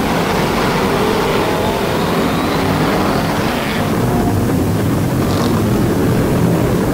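A pack of BriSCA F1 stock cars racing, their V8 engines making a loud, steady din. The higher hiss falls away a little before halfway through, leaving mostly the lower engine sound.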